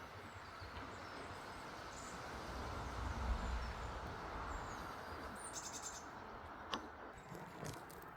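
Outdoor ambience: a steady background hiss with a few short, high bird chirps, a low rumble swelling in the middle, and a single sharp click near the end.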